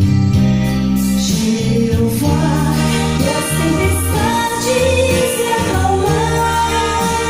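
Recorded vocal music with singing over sustained bass notes and chords, played back over loudspeakers driven by an Accuphase E-202 amplifier.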